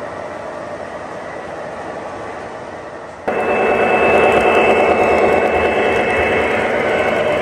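O-gauge model train running on three-rail track: a steady rolling and motor hum of wheels on rail. About three seconds in it turns suddenly louder, with a steady high whine added, as a model diesel locomotive and its flatcars pass close.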